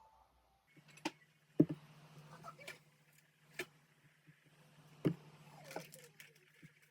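Several sharp taps and knocks, the loudest about one and a half seconds in, over a low steady hum.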